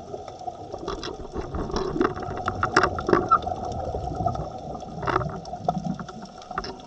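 Underwater sound on a scuba dive, picked up by a camera in a waterproof housing: a steady hum with scattered clicks and crackling. The crackling is densest about three seconds in and again about five seconds in.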